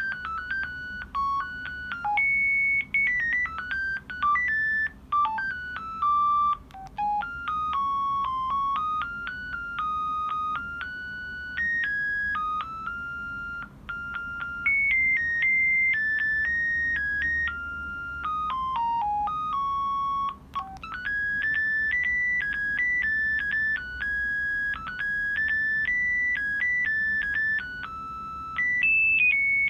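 Audiovox CDM-8200 mobile phone playing its built-in ringtones through its small speaker: electronic melodies of short notes, one at a time. About two-thirds of the way through, one tune breaks off and another begins.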